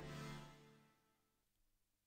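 Fading tail of a pluck chord from the 'PL Boulder Dash MLM' preset on the Reveal Sound Spire software synthesizer, dying away within the first second, then near silence.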